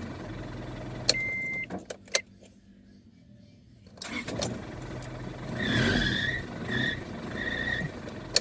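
Car engine running during a charging test of a freshly repaired alternator, with a sharp click and a short high beep about a second in. The sound drops almost away for about two seconds, then the engine noise returns with several short high tones.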